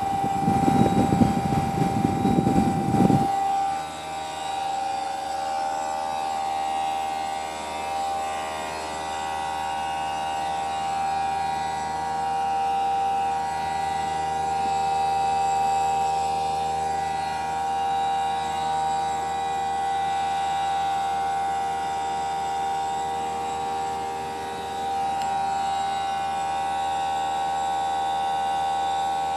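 Newly installed Greenspeed heat pump running with a loud, steady whine, several tones held at once over a hum: not quiet. A loud low rumble lies over it for about the first three seconds.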